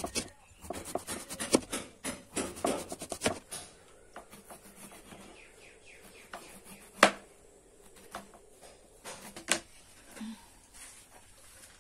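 A large kitchen knife chopping through a banana flower onto a cutting board: a quick run of cuts and knocks for the first three seconds or so. Then only occasional single knocks and light rubbing as the florets are handled, with one sharper knock near the middle.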